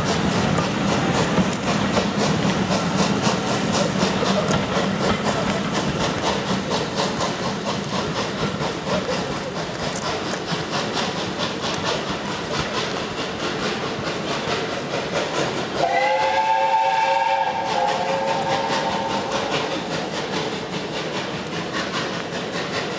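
Passenger coaches rolling past on the track, wheels clicking over the rail joints, the rumble fading as the train draws away. About two-thirds of the way in, a steam locomotive's whistle sounds once for about three seconds, several notes together, rising slightly as it starts.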